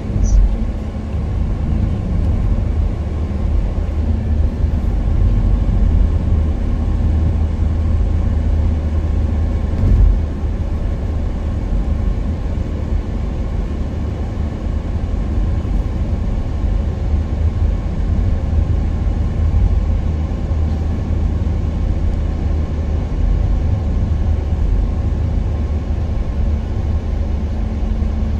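A moving car heard from inside its cabin: a steady low rumble of tyres on the road and the engine, with one brief knock about ten seconds in.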